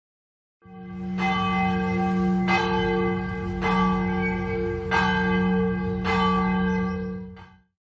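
A large church bell tolling: about five strokes a little over a second apart over a steady ringing hum, dying away near the end.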